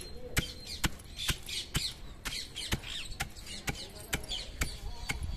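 A long wooden pestle pounding roasted peanuts in a granite stone mortar: a steady knock a little over twice a second as the nuts are crushed coarsely. Bird calls chirp between the strokes.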